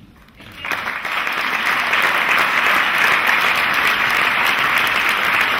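Audience applauding, starting just under a second in and then holding steady.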